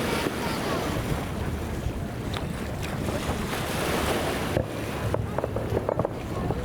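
Fireworks bursting in a steady, rolling rumble, with wind buffeting the microphone; a few sharp crackles near the end.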